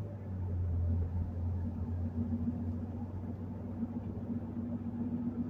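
Steady low drone of a car's engine and tyre noise, heard from inside the cabin while driving.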